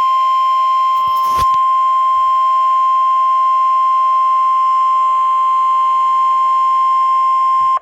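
NOAA Weather Radio 1050 Hz warning alarm tone: one loud, steady high tone that cuts off suddenly near the end, with a short crackle about a second and a half in. It is the alert signal that announces a warning message is about to be broadcast.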